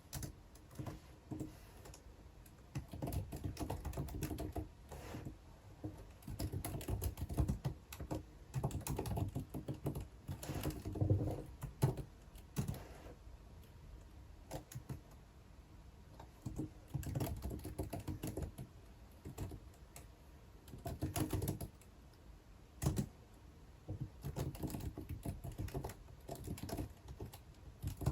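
Typing on a computer keyboard in runs of rapid key clicks a second or few long, broken by short pauses, with a few single clicks in between.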